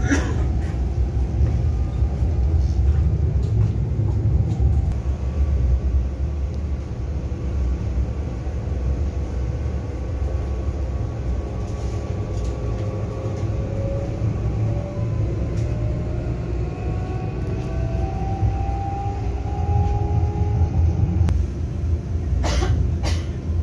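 Interior of an FGC UT-115 electric train running: a steady low rumble, with faint whining tones rising in pitch through the middle and two sharp knocks near the end.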